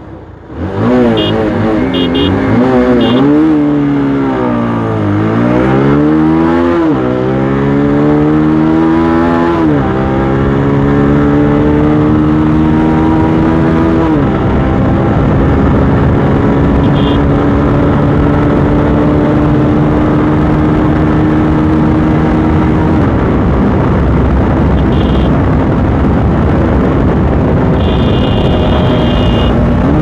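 Motorcycle engine pulling away and accelerating up through the gears, its pitch climbing and then dropping at each shift over the first dozen seconds, then running steadily at cruising speed with the pitch slowly rising. A few short high beeps sound now and then.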